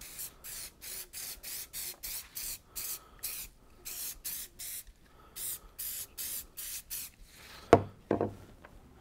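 Aerosol can of spray adhesive being sprayed in short hissing pulses, about three a second with a couple of brief pauses, coating the back of a paper template. Near the end comes a sharp knock as the can is set down on the wooden bench.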